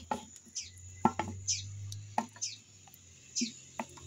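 A few sharp knocks and clatters from a metal pot being tipped out over plastic tubs, the loudest about a second in. Over them, a bird repeats short, high, falling chirps about once a second.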